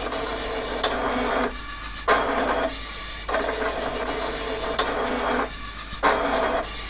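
HP9862A X-Y plotter's drive motors moving the pen arm and carriage in quick repeated moves: a whirring in several short runs with brief pauses between. Sharp clicks about a second in and near five seconds, the pen lowering and raising.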